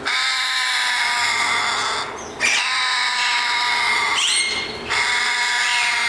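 African grey parrot giving three long, drawn-out harsh calls, with short breaks about two seconds and four and a half seconds in.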